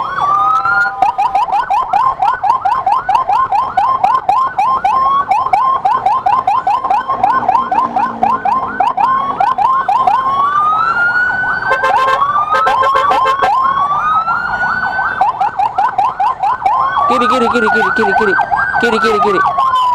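Electronic siren in a fast yelp, sweeping up about four to five times a second. It switches to a slower rising-and-falling wail several times, around ten seconds in, again shortly after, and near the end.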